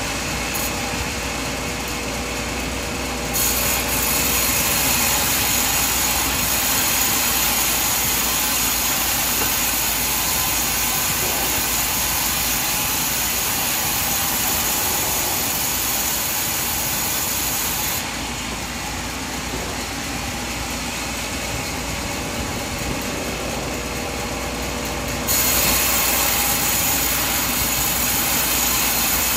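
Sawmill bandsaw and its engine running as the blade cuts through coconut trunk wood, a steady loud machine noise. It gets louder and brighter about three seconds in, drops back at about eighteen seconds and comes up again about twenty-five seconds in.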